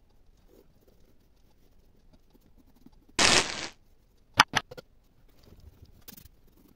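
Sound effects of a like-and-subscribe button animation: a short whoosh a little past three seconds in, then a quick run of four or five mouse clicks, and another short whoosh at the very end. Faint rubbing of pencil and eraser on paper lies underneath.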